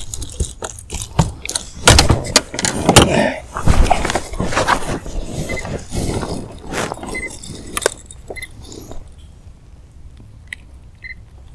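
A freshly landed fish flapping against a boat's deck and a landing net, with sharp knocks and the metallic clatter of a topwater stickbait's treble hooks as the lure is worked out of its mouth. It calms after about eight seconds, leaving lighter clicks of the handling.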